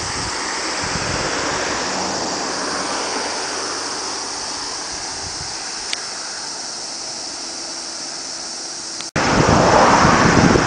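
Steady rushing outdoor noise of wind and road traffic. After a brief dropout near the end, louder gusts of wind buffet the microphone.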